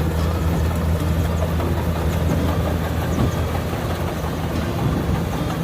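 Kubota DC60 combine harvester's diesel engine running steadily, a low even hum with a noisy wash above it.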